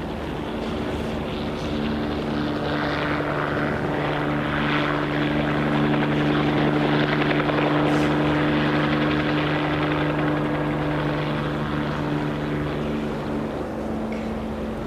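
A steady engine drone with a few held tones over a rushing noise, growing louder to a peak about halfway through and easing off again.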